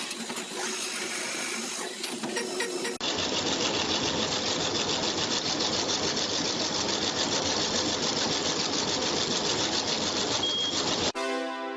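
CNC machine tool cutting metal: a dense, very rapid chattering cutting noise, with an abrupt change to a different cut about three seconds in. Keyboard music takes over near the end.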